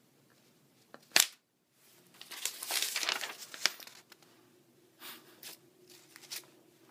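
Sheets of lined notebook paper rustling and crinkling as they are handled and swapped, with a brief sharp snap about a second in and a longer crinkle after it.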